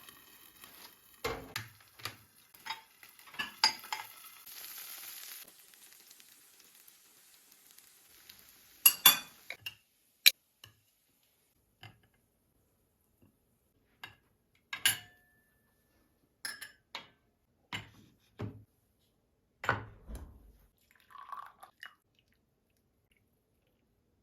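Kitchenware being handled: scattered knocks and clinks of dishes and utensils with quiet gaps between, a brief rustling noise about five seconds in, and a sharp ringing clink about ten seconds in.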